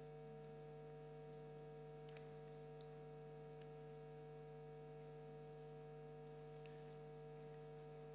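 Near silence: a steady electrical mains hum, with a few faint ticks.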